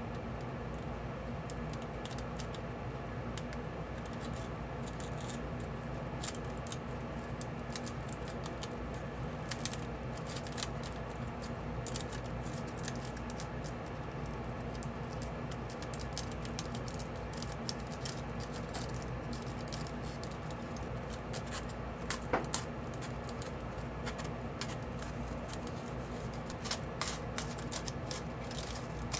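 Small scissors snipping through a thin aluminium-foil shell, with the foil crinkling as it is cut and handled. The snips come as scattered, irregular small clicks over a low steady hum.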